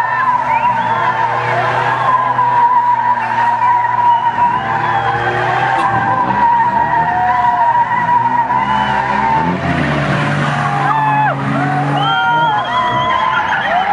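Small hatchback's tyres squealing during donuts, with its engine running hard beneath. A steady squeal breaks up after about nine and a half seconds into shorter, wavering squeals.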